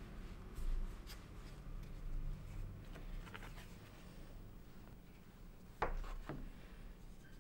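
Soft rubbing of hands rolling a log of taro rice-cake dough on a wooden board, then a plastic bench scraper cutting through the dough, knocking twice on the board near the end.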